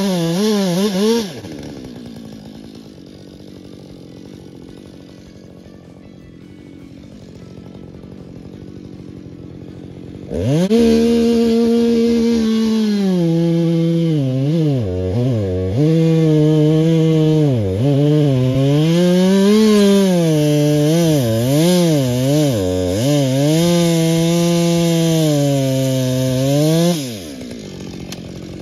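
Husqvarna XPG two-stroke chainsaw running at full throttle, dropping away about a second in. About ten seconds in it opens up again and runs hard for some sixteen seconds, its pitch dipping and recovering again and again as the chain bites into the wood, then falls back near the end.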